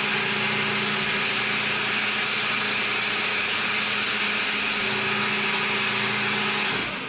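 CNC milling machine running steadily while machining, a constant whine with hiss; it cuts off near the end.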